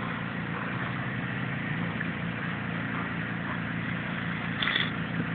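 Steady hiss of a lawn sprinkler's water spray over a low steady hum, briefly louder near the end.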